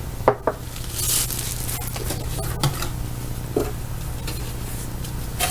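Handling noise of box items being unpacked: a brief rustle of packaging about a second in and a few light clicks and knocks as objects are set down, over a steady low hum.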